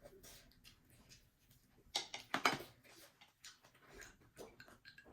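Eating sounds: scattered light clicks and taps of utensils and chewing, with a louder noisy burst about two seconds in.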